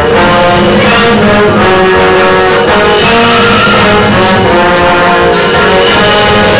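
High school marching band playing loudly: brass holding chords, with a marimba struck with mallets alongside.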